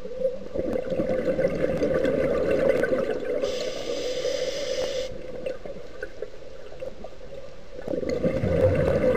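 Scuba diver breathing through a regulator underwater. A gurgling rush of exhaled bubbles is followed by a short hiss of inhalation about three and a half seconds in, then another burst of bubbles near the end, all over a steady hum.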